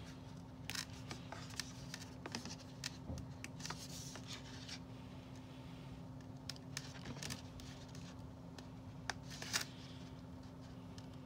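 Faint rustling and scattered small clicks of hands handling a doll's sheer fabric overskirt and loose plastic packaging, over a steady low hum.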